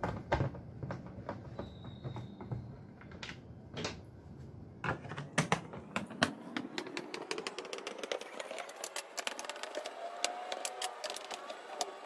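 A Phillips screwdriver unscrewing small screws from the plastic housing of a Vortex floor fan. There are scattered clicks and taps at first, then from about five seconds a fast, dense run of clicks with a faint squeak rising in pitch.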